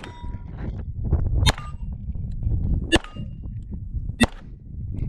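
Beretta 92 9mm pistol shots at a steady pace, about one every second and a half, each sharp crack followed by the short metallic ring of a hit steel target plate.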